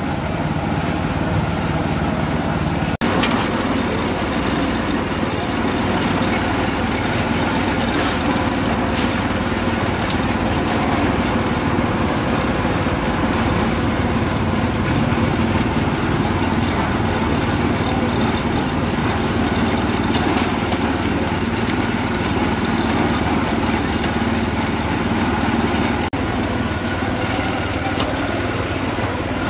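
An engine running steadily, with a steady low hum, amid outdoor market noise.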